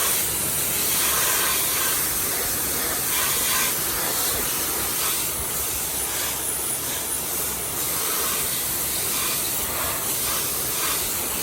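Pressure washer jet spraying water onto an ATV engine, a steady loud hiss that swells and dips slightly as the spray moves, rinsing off aluminum cleaner and brightener.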